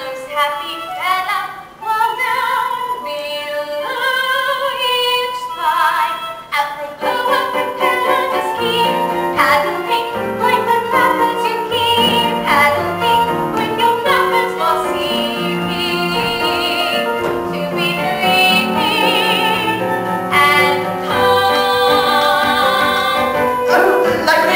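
A woman singing a musical-theatre song over instrumental accompaniment. The accompaniment fills out about seven seconds in, and later held notes carry a clear vibrato.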